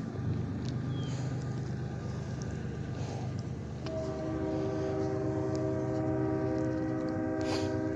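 A train horn sounds one long, steady multi-note chord, starting about four seconds in and held to the end, over a steady low hum.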